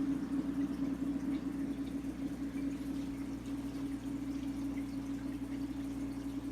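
Aquarium pump humming steadily, with water trickling and dripping.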